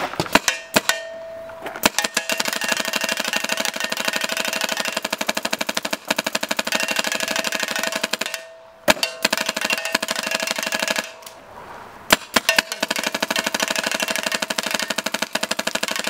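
Planet Eclipse Geo 3 paintball marker firing long, rapid strings of shots, many a second. It pauses briefly about eight seconds in and again about eleven seconds in.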